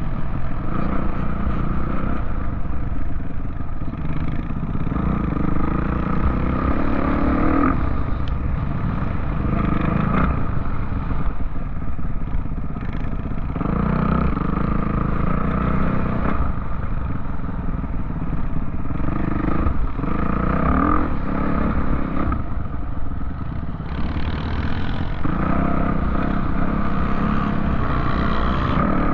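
Off-road vehicle engine running and revving, its pitch rising and falling every few seconds, with rattling and clatter.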